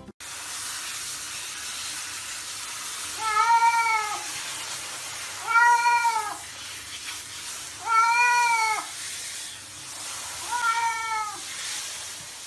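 A cat meowing four times while being bathed under a handheld shower. Each meow lasts about a second and rises then falls in pitch, over the steady hiss of the spraying water.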